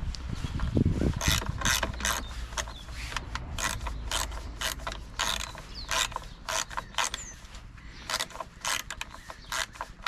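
Socket ratchet clicking in short bursts, a few a second, as it is swung back and forth to wind in the carburettor mounting bolts.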